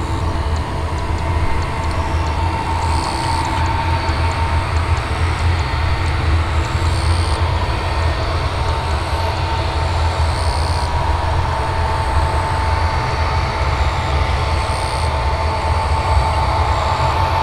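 Boeing 777-200's twin turbofan engines running at low taxi power as the airliner rolls slowly along the runway: a steady low rumble with a high engine whine held on one pitch, creeping slightly higher near the end.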